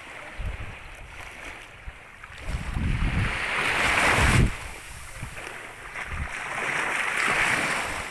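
Small waves washing up and breaking on a sandy shore in two swells, the first building to a peak about four seconds in and cutting off suddenly. Gusts of wind buffet the microphone with a low rumble.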